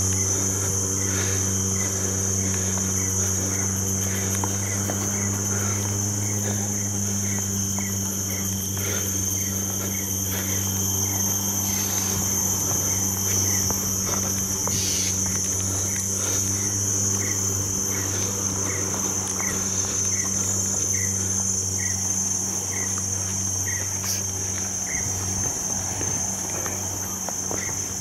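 Steady high-pitched insect drone, crickets or cicadas, with a short chirp repeating about twice a second and a low steady hum underneath.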